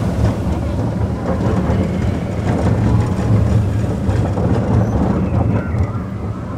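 Expedition Everest roller coaster train rolling along its track: a steady low rumble of the wheels on the rails, with faint clacks now and then.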